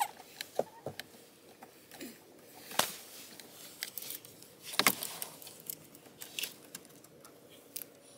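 Scattered clicks and taps of a screwdriver and plastic parts being worked around an exposed steering column, as someone tries to remove a damaged ignition cylinder. The loudest clicks come about three seconds in and as a quick pair near five seconds.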